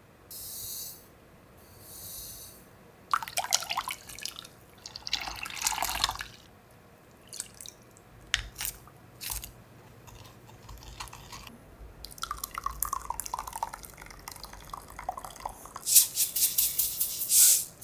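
Liquid seasonings, mirim among them, poured into a ceramic pitcher in several short splashing, dripping pours, with a few clicks between them. Near the end comes the loudest part: a quick rattling patter as sesame seeds are shaken into a stainless steel mixing bowl.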